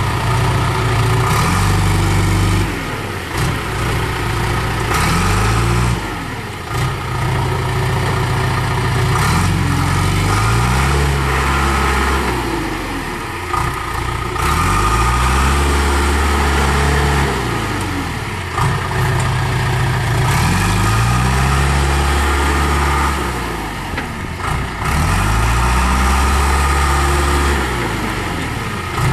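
John Deere 310E backhoe loader's diesel engine running, its speed rising and falling again and again every few seconds as it is throttled up and back down.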